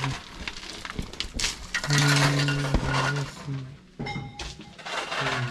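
Metallic clinks and knocks, with a low hummed or sung tune in held, stepping notes in the middle and again near the end.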